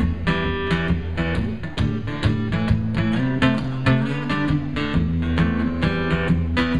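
Acoustic guitar played live, a steady rhythm of picked and strummed notes over ringing bass notes, with no singing.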